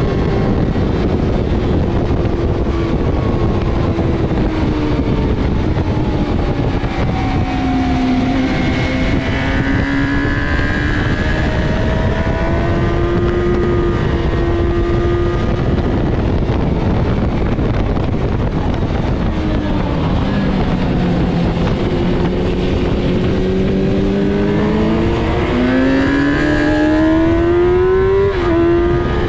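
Sport motorcycle engine heard on board at track speed: its note falls off when the throttle is closed and climbs again under acceleration, with a long climb ending in an upshift near the end. Heavy wind noise over the microphone.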